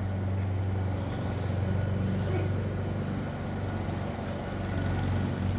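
Steady low engine drone of leaf blowers and a lawnmower running a little way off, holding an even level without a break.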